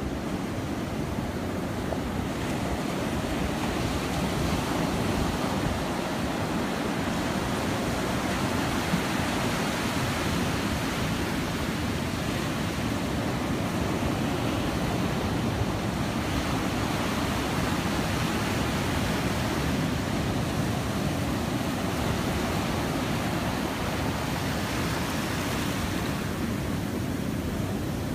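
Ocean surf: a steady rush of waves breaking and washing up a shallow beach, with wind rumbling on the microphone.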